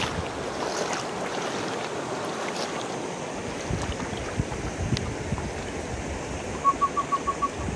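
River water running over rocks in a steady rush, with wind buffeting the microphone. Near the end comes a quick run of about six short high pips.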